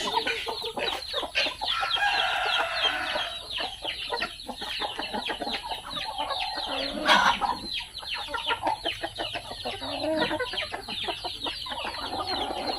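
A flock of free-range native chickens clucking and calling in quick, overlapping notes as they eat. A longer, drawn-out call comes about two seconds in.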